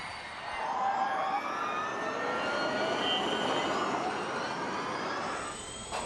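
Nissan Gen3 Formula E car's electric drivetrain whining as it drives through a corner, the whine climbing in pitch over a few seconds as it accelerates, then easing off near the end.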